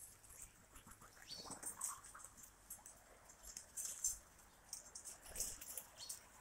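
Faint, scattered light ticks and scratches of domestic pigeons walking and pecking about on a tar-paper loft roof.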